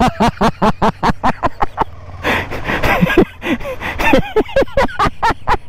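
A man laughing in quick, breathy bursts, about six a second at first and then looser, over a steady low rumble.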